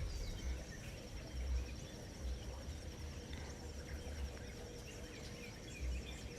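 Faint outdoor ambience: an insect's steady high trill runs throughout, with a few short bird chirps near the start and occasional dull low bumps.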